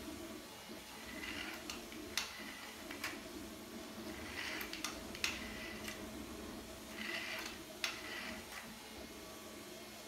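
3D-printed string-climbing rocket toy whirring in three short spells as its dual spools wind and unwind on the string, with several sharp plastic clicks and knocks in between. A steady low hum lies underneath.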